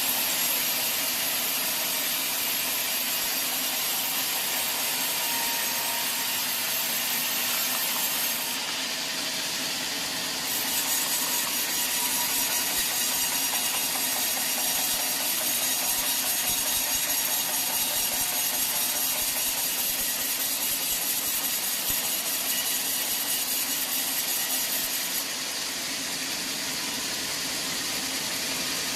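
Sawmill saw cutting through teak wood, a steady hissing, grinding noise, with sudden shifts in its high hiss about a third of the way in and again near the end.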